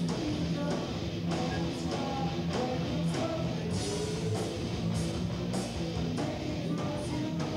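Heavy metal band playing live: electric guitars and a drum kit, with frequent cymbal hits.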